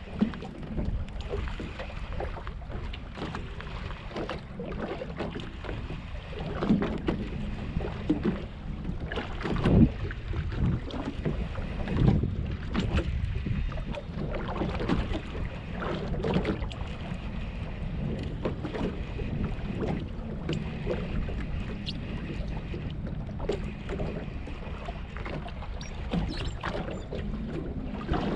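Wind buffeting the microphone over small waves slapping against a boat's hull, with irregular knocks and splashes, the sharpest about a third of the way in.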